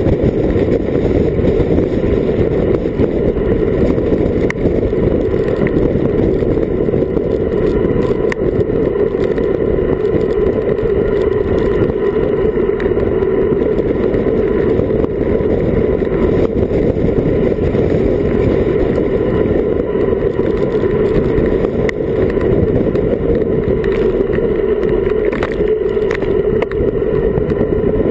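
Wind rushing over an action camera's microphone on a road bike descending at about 40 km/h, with tyre noise on the asphalt: a loud, steady roar.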